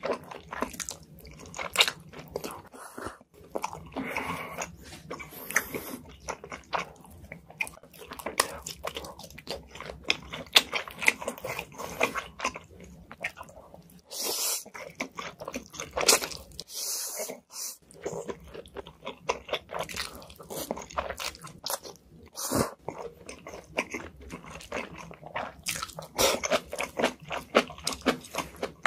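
Close-miked eating sounds: a person slurping instant noodles and chewing wet mouthfuls, with many small mouth clicks and a few longer slurps.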